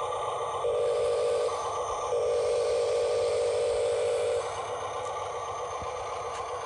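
Small electric motor and gearbox of a radio-controlled construction model whirring steadily, louder twice: briefly about a second in, then for a couple of seconds from about two seconds in.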